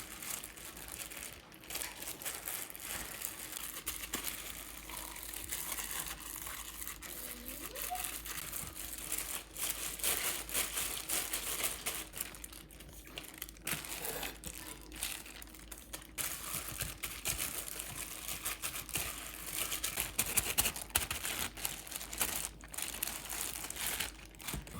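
Continuous crinkling and rustling of something like plastic wrap or a bag being handled, with many small clicks and taps mixed in.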